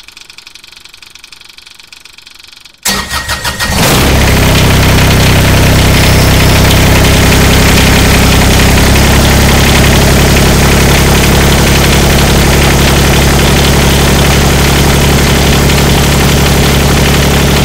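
Engine cranking over for about a second, catching, and settling into a steady idle. Before the crank there is only a faint low hum.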